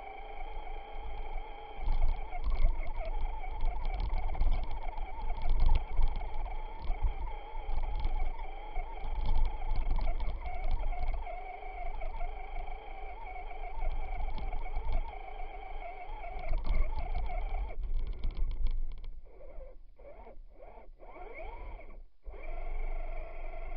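Traxxas Stampede RC truck's electric motor and gears whining as it drives through snow, heard from a camera mounted on the truck, with low rumbling and crackly knocks as it bumps along. About eighteen seconds in the whine mostly cuts out and the sound breaks up into crackle and gaps, then the whine briefly returns near the end.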